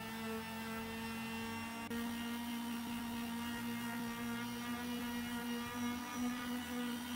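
Electric palm sander running at a steady pitch as it is worked back and forth over a wooden board, a constant motor hum with overtones.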